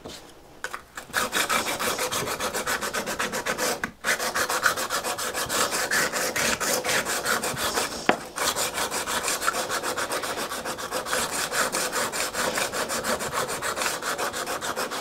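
Steel card scraper rubbed back and forth on the coarse side of a combination sharpening stone, about three scraping strokes a second, starting about a second in with short breaks around four and eight seconds in. The strokes are honing the scraper's edges.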